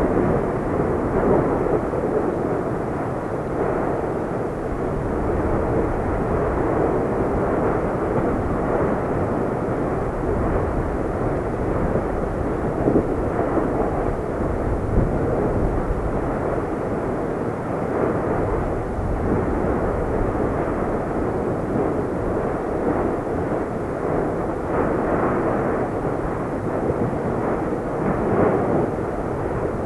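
Lava fountains erupting from a row of volcanic vents: a steady rushing roar, with a few brief, sharper bursts as the lava spatters and splashes.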